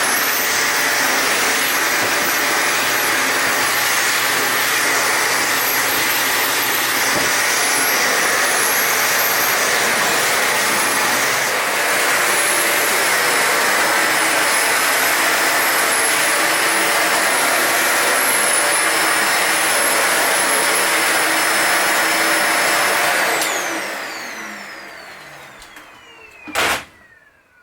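Toshiba VC-S960 vacuum cleaner running steadily with a high whine. Near the end it is switched off and the motor spins down with a falling whine, followed by a single sharp knock.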